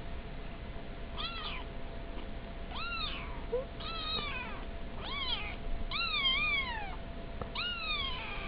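Young kittens mewing: about six short, high-pitched mews a second or so apart, each rising and then falling in pitch.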